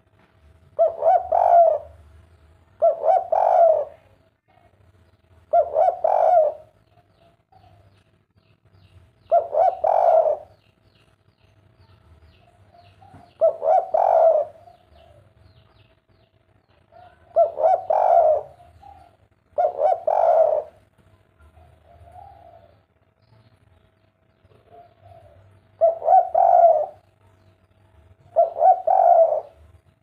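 Spotted dove (derkuku) cooing its 'kuk 3' song: nine short multi-note coos, each about a second long, repeated every two to four seconds.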